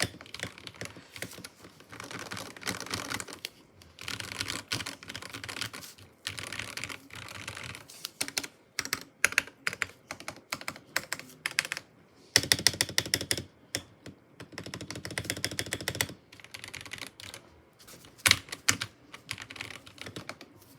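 Modded mechanical keyboard with Gateron Yellow linear switches being typed on: bursts of fast typing separated by short pauses, with a few single louder key presses in between.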